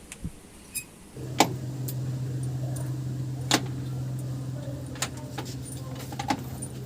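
A steady low machine hum starts about a second in, with sharp metal clinks over it, four of them standing out.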